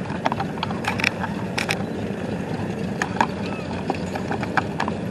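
Outdoor crowd murmur over a steady low rumble, with scattered sharp clicks.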